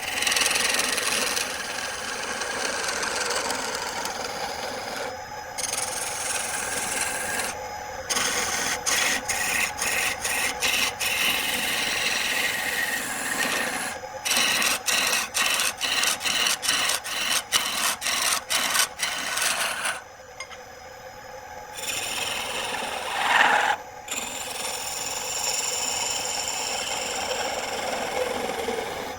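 Tool scraping and cutting wood on a lathe: a steady rasping noise broken by many abrupt short gaps, which come in quick runs of two or three a second through the middle.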